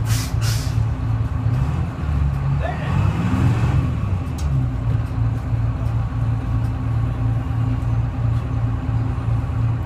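Detroit Diesel Series 71 two-stroke diesel of a 1970-71 GMC 'New Look' transit bus running with a steady, pulsing low drone. A short hiss of air comes in right at the start.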